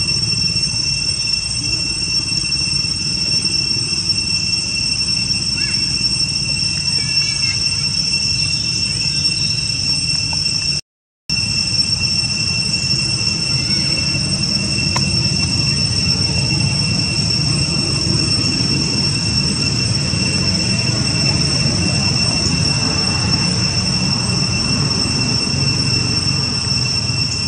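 Steady insect drone with two unbroken high tones over a low rumble, cutting out for a moment about eleven seconds in.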